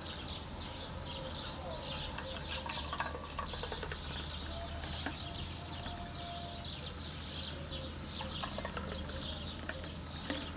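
Many small birds chirping in a busy, irregular chatter throughout, over a steady low hum.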